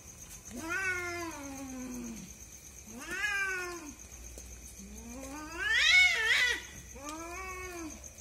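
Cats caterwauling in a fight: a series of long, drawn-out yowls that bend up and down in pitch, four in all. The loudest, most wavering yowl comes about six seconds in.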